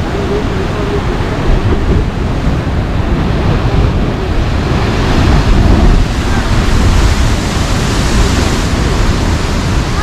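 Pacific Ocean surf crashing into a rocky basalt chasm, a continuous wash of breaking waves and seawater pouring back off the rock ledges. A big wave surges in and throws up spray around five to six seconds in, the loudest moment.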